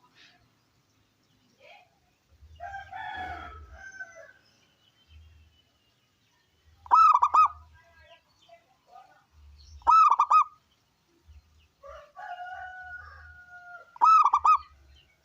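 Zebra dove (perkutut) cooing: three loud, short rolling coo phrases, each well under a second, about three to four seconds apart in the second half. Two fainter, longer calls from another bird come in between, one near the start and one just before the last coo.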